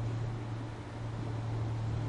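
Merseyrail third-rail electric multiple unit running slowly in towards the platform: a steady low hum under an even hiss of rolling noise.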